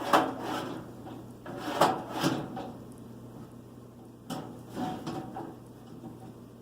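A few separate knocks and clatters from a galvanized steel poultry feeder being worked by hand. The loudest comes right at the start, two more about two seconds in, and two more a little after four seconds.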